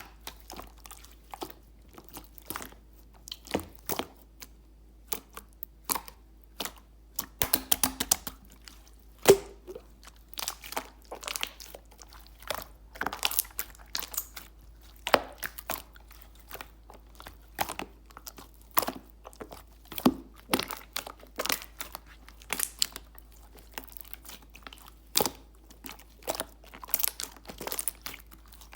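Clear slime being squished and pressed by hand, making many irregular sharp clicks and pops.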